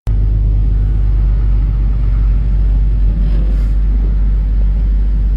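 Steady low rumble of road vehicle noise, a car's engine and tyres, heavy in the bass.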